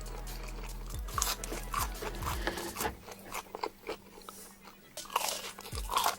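Crunchy food being bitten and chewed, a quick series of crisp crunches close to the microphone.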